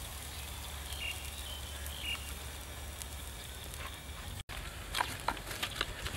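Whole pig spit-roasting over a charcoal fire: a low steady hiss at first, then about four and a half seconds in, sharp irregular crackling and sizzling as the hot skin is brushed with baste.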